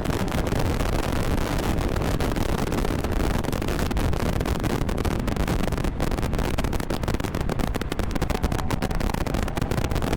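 Mazda MX-5 roadster's four-cylinder engine running hard at speed on a race track, buried under heavy wind buffeting on a car-mounted action camera's microphone. It is a steady, loud roar with many brief dropouts in the sound.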